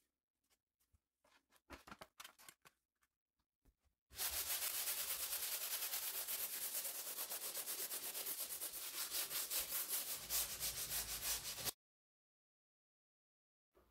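Sandpaper on a sanding block rubbed by hand over a painted interior wall: a few light scrapes, then about eight seconds of steady rasping in rapid back-and-forth strokes that cuts off suddenly.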